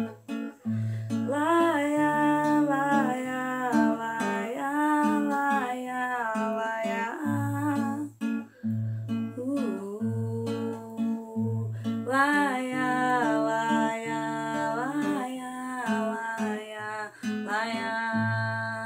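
Acoustic guitar played in a steady rhythm while a woman sings a wordless melody over it.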